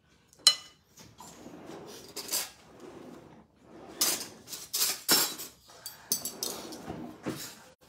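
A sharp metallic clink about half a second in, then a kitchen drawer of metal cutlery and utensils rattling and clattering as it is pulled open and rummaged through.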